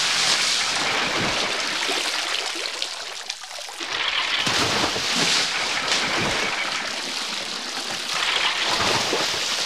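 Heavy water streaming and splashing into a barrel of water as a body hung upside down is hauled up dripping out of it. The splashing eases briefly about three and a half seconds in, then picks up again.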